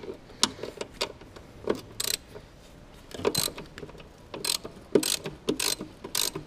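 Ratcheting 14 mm ring spanner working a bolt loose, clicking in short bursts on each back-swing, with small knocks of the spanner against the metal guard.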